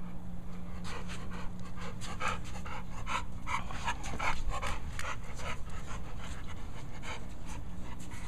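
A blue-coated bully-type pit bull panting hard and fast with its mouth open, about three breaths a second, over a steady low hum.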